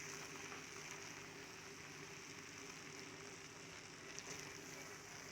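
Pot of chicken pilau (rice, coconut milk and stock) cooking on the stove, a faint steady sizzle and bubbling, with a low hum underneath.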